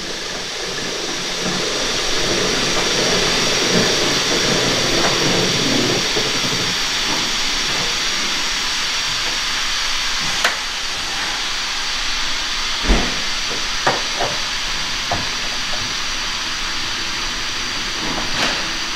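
Steady hiss of air from the stabled train, with a few scattered light clicks and one low thump about thirteen seconds in.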